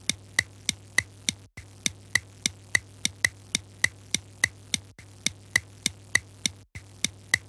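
A looped sound effect of sharp, evenly spaced clicks, about three a second, over a low steady hum. It breaks off briefly and restarts a few times.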